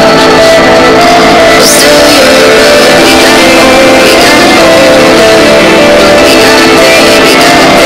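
Loud background music.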